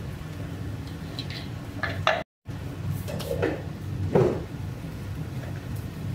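A few light knocks and clinks of a bowl and utensils over a steady low hum, with a brief cut to silence about two seconds in.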